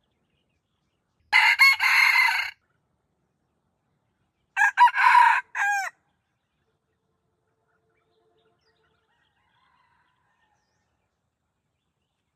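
A rooster crowing twice, about three seconds apart, each crow lasting about a second.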